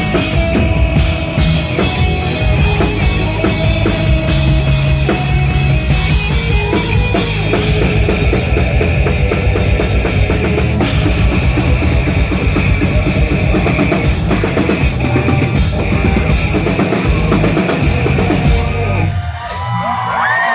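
A rock band plays live and loud, with a pounding drum kit and bass drum. The music stops about nineteen seconds in, and the crowd starts cheering and whooping right at the end.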